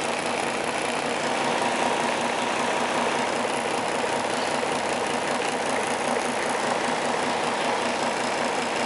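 Electric fan motor from a 1988 HARCO screen printing dryer running steadily with its blade spinning: an even whir with a thin steady tone through it.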